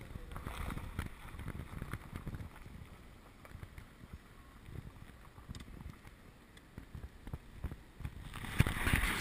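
Wind buffeting a GoPro's microphone: an uneven low rumble with scattered knocks, swelling louder near the end.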